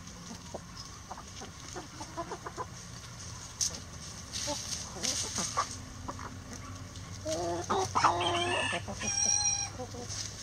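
Chickens clucking softly and pecking at scattered boiled egg and grain, with a rooster crowing loudly about seven seconds in.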